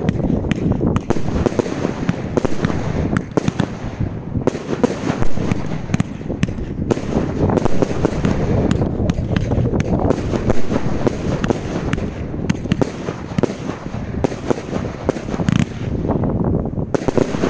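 A 50-shot 30mm 1.3G firework cake (Epic Fireworks Special Effects) firing a rapid, continuous string of shots and bursts. Low wind rumble on the microphone runs underneath.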